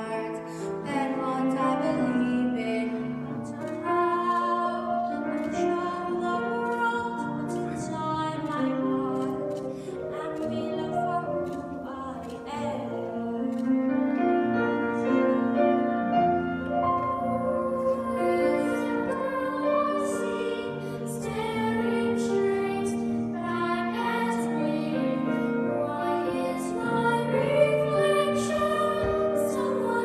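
Young girls' voices singing through stage microphones, with long held notes that change pitch every second or so, over musical accompaniment.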